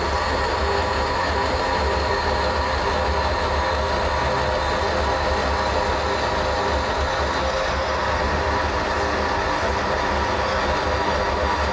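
Vertical band saw running steadily as its blade cuts lengthwise through an 8 mm thick aluminium angle profile.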